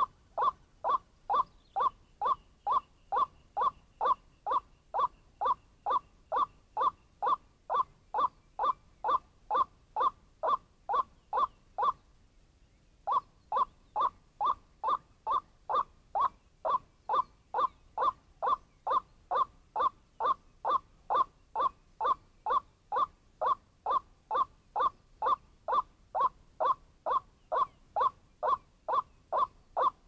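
White-breasted waterhen (wak-wak) calls: a monotonous, evenly repeated note about twice a second. The calls break off briefly about twelve seconds in, then carry on at the same pace.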